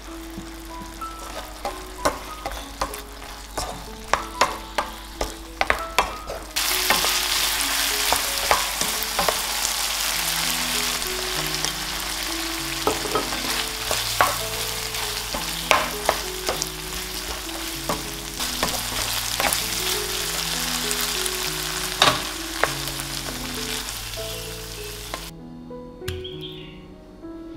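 Shrimp frying in garlic butter sauce in a pan, stirred with a utensil that clicks against the pan. For the first few seconds there are only scattered clicks. Then a loud, steady sizzle starts suddenly, with more stirring clicks, and stops abruptly near the end. Background music with a simple low melody plays underneath.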